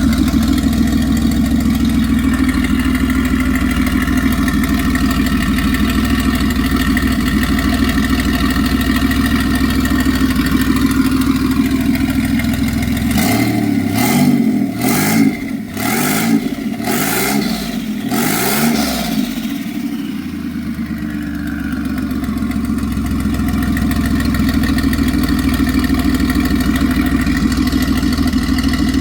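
Turbocharged Holden Commodore V6 engine idling steadily, then revved in several quick blips about halfway through before settling back to idle.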